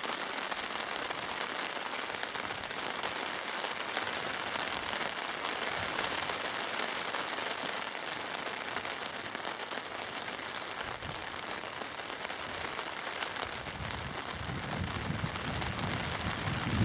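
Steady rain falling and pattering on the tarp overhead, an even hiss of drops. A low rumble builds in underneath near the end.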